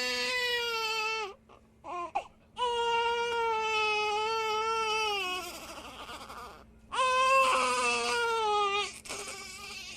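Baby crying: three long cries with short pauses for breath between them. The middle cry is the longest and trails off.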